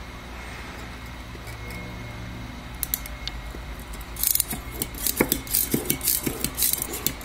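Steel surgical clamp clicking and scraping against stainless steel ligature wire and a plaster dental model as the wire is gripped and twisted. A quick, uneven run of sharp metallic clicks and short rasps starts about four seconds in.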